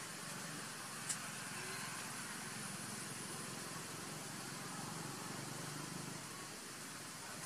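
Steady low hum of a distant engine under a faint hiss, with one sharp click about a second in.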